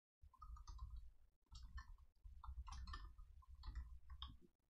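Faint computer keyboard typing: short runs of soft key clicks over a low hum.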